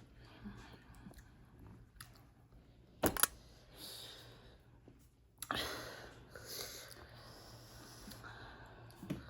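A person eating a Jolo Carolina Reaper tortilla chip, heard as faint mouth and breathing sounds: one sharp crack about three seconds in, then a breathy exhale about halfway through, with quiet chewing.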